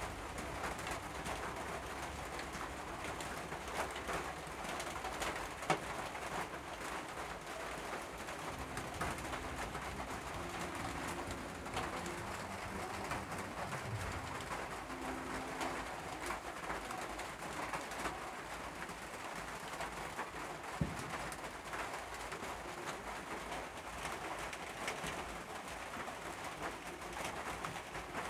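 Low bird calls over a steady background hiss, with a few short sharp clicks.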